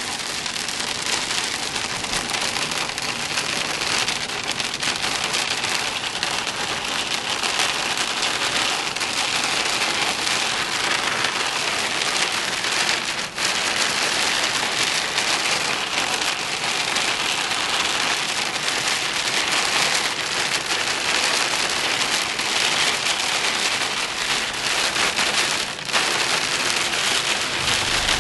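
Heavy rain pouring down: a dense, steady hiss of drops pattering, briefly breaking off twice, about halfway through and near the end.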